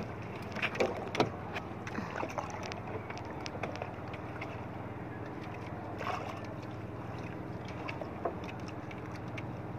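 Fishing net being hauled by hand over the side of a small boat: scattered knocks and scrapes against the hull, the sharpest a few about a second in, over a steady low hum.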